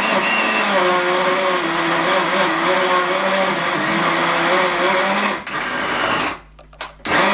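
Countertop blender with a glass jug running and churning a thick, foamy slime mixture of glue and shaving foam, its motor hum wavering a little under the load. It cuts off about six seconds in and starts up again near the end.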